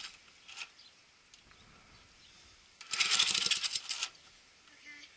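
A Briggs & Stratton 148cc push mower engine cranked by one sharp pull of its recoil starter cord, a rattling burst of about a second a few seconds in, that does not keep running. The engine, primed, comes close to starting without catching.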